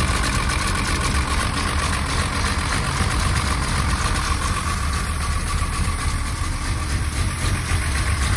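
Mercedes-Benz 220SEb's fuel-injected straight-six idling steadily, which the owner finds to be overfuelling badly.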